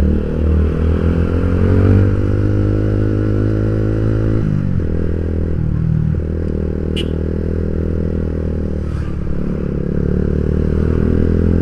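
Yamaha Vixion's single-cylinder four-stroke engine pulling under throttle, heard from the rider's seat. The engine note climbs a little, dips briefly about four and a half seconds in, then runs steady again.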